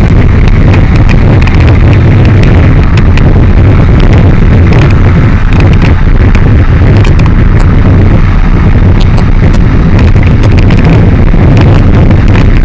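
Loud wind rush buffeting the microphone over a Benelli TRK 502's parallel-twin engine running steadily at highway cruising speed, about 120 km/h.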